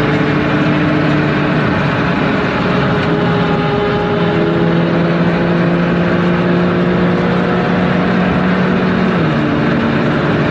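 Porsche 911 (992) at around 260–290 km/h, heard from inside the cabin: a loud, steady engine drone over wind and tyre roar. The engine note steps up about four seconds in and drops back about nine seconds in.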